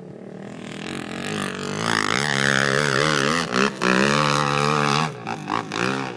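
Off-road vehicle's engine revving hard as it climbs a steep coal pile. It builds over the first two seconds, its pitch wavers up and down under the throttle, then it drops and turns choppy near the end.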